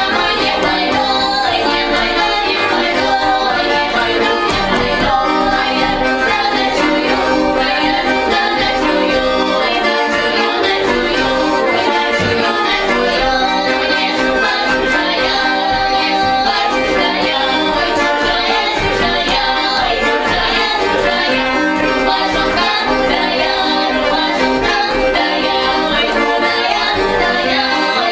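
A female vocal trio singing a Russian folk song in open-voiced folk style, the voices moving together in close harmony without a break.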